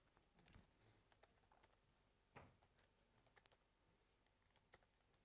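Faint typing on a laptop keyboard: irregular key clicks, with one louder knock a little before halfway.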